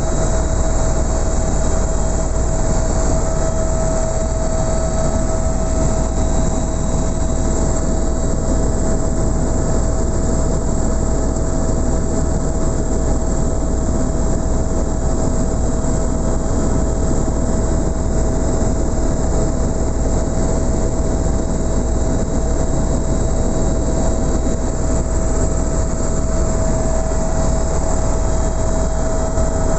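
Helicopter in flight heard from inside the cabin: a loud, steady drone of engine and rotor with a constant whine.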